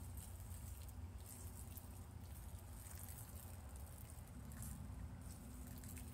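Faint, irregular patter of wort draining and dripping from the hoisted brew-in-a-bag grain bag into the kettle, over a steady low hum.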